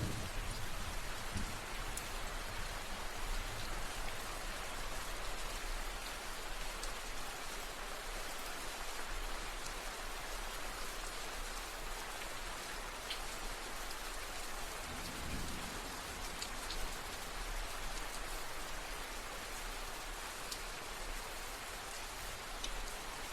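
Steady rain falling, an even dense hiss with scattered sharp drop ticks, and a brief low swell about fifteen seconds in.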